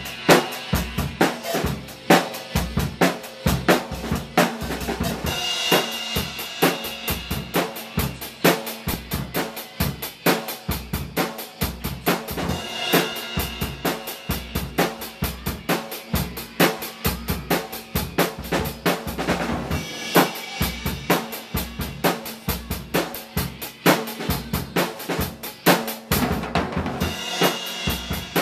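A drum kit played continuously in a steady groove, with bass drum, snare and hi-hat, and cymbal crashes every several seconds.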